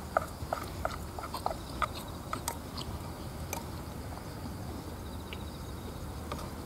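Wooden chopsticks clicking and scraping against the inside of a metal tin of canned rice, scooping out the last grains: a quick run of short clicks in the first two or three seconds, then only a few more.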